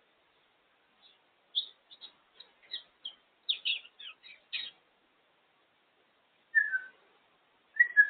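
African grey parrot calling: a quick run of about a dozen short, high chirps, then a short whistle falling in pitch, with another whistle beginning near the end.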